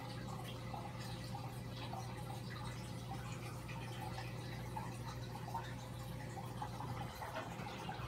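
Aquarium water trickling and bubbling over a steady low hum from a running filter pump.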